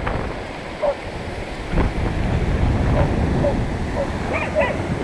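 Wind buffeting the microphone over surf washing up on a sandy beach. Short pitched cries, like whines, come through every half second to a second, with a brief cluster near the end.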